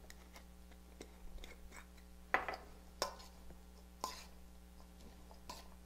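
Light clinks against a stainless steel mixing bowl as a salad is mixed: a few soft ticks, then about four sharper clinks roughly a second apart, the loudest about two seconds in, over a faint steady hum.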